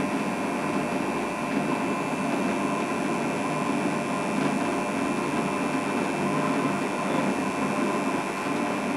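Bench drill press motor running steadily as the bit bores into a leather-covered scabbard held in a vise.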